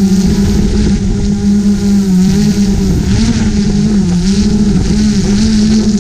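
GoPro Karma quadcopter drone's motors and propellers humming, the pitch rising and falling as the throttle changes, with wind rumble on the microphone.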